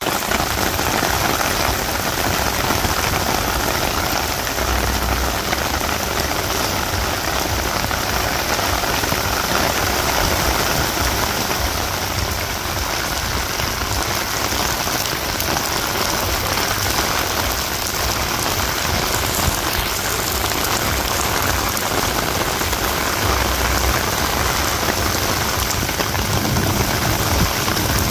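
Heavy rain pouring down steadily, a loud, dense, even hiss of rain on the ground, with a couple of brief low rumbles underneath.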